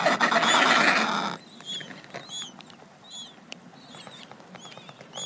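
Adélie penguins calling: a loud, harsh, buzzing bray that cuts off about a second and a half in. Through it and after it come short, high, repeated peeps, one or two a second.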